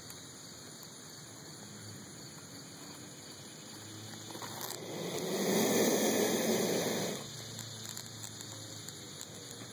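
A Savannah monitor hissing once, a long breathy hiss lasting about three seconds that builds up and then cuts off sharply: a defensive warning from a lizard unhappy at being approached.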